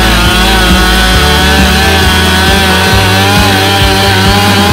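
Stihl MS 441 two-stroke chainsaw held at full throttle while cutting into a pine trunk. Its high engine note wavers slightly as the chain loads in the wood.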